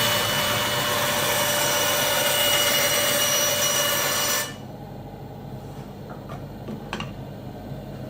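Metabo band saw cutting, a loud rasping noise with a steady whine, which stops abruptly about four and a half seconds in. A low hum and a few faint clicks remain afterwards.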